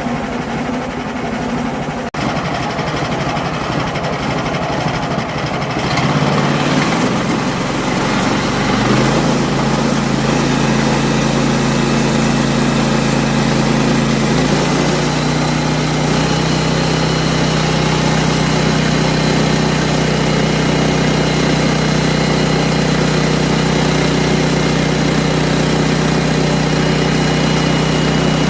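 Sawmill engine running under a steady loud mechanical noise; about six seconds in its pitch steps up over several seconds, then it runs at a steady speed.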